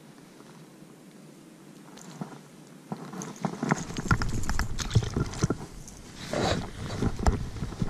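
Irregular clicks, knocks and low thumps from movement on a pebble shore, starting about three seconds in and loudest in the second half.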